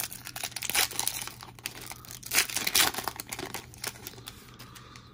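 Trading-card pack wrapper crinkling and tearing as it is opened: irregular crackles, loudest about a second in and again between two and a half and three seconds in, then thinning out.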